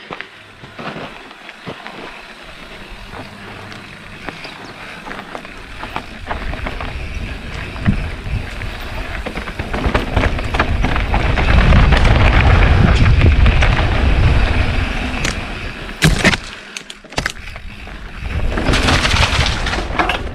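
Mountain bike riding a dirt singletrack: tyres crunching over dirt and stones and the bike rattling, with wind rushing over the mic. It builds to its loudest about halfway through as speed picks up, and there is a sharp knock a few seconds before the end.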